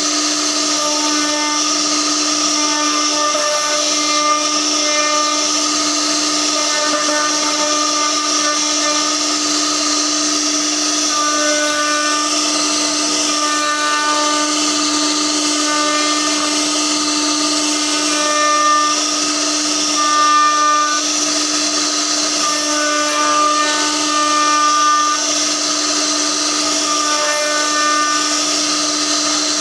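CNC router spindle running at high speed while its bit carves a relief pattern into a wooden door panel. A steady whine, with higher cutting tones that come and go as the bit moves through the wood, over a hiss.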